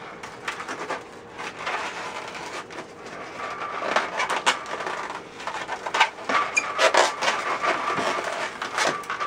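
Latex modelling balloons squeaking and rubbing as they are handled and twisted together, with irregular clicks and rattles; the squeaks come thicker from about halfway on.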